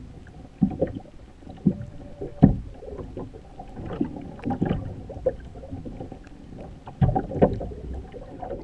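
Muffled sloshing and irregular low thumps of seawater, heard through a camera held underwater beside a boat's hull; the strongest thumps come about two and a half seconds in and again near the end.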